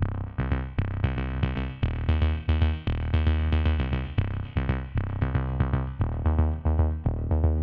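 Electronic background music with a steady beat, quick repeating notes and heavy bass.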